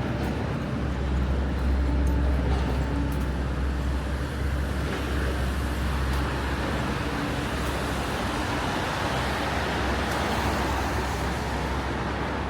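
City street traffic: a steady low rumble of passing cars and buses, with an even hiss of tyres on the rain-wet road.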